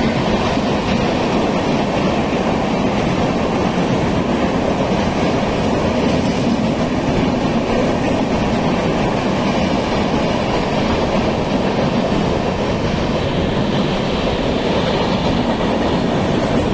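Rajdhani Express passenger coaches running past at speed, their wheels on the rails making a steady, loud noise.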